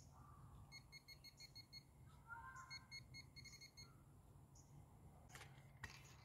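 Near silence, with faint, rapid high-pitched beeps in two short runs, about a second in and again near the middle.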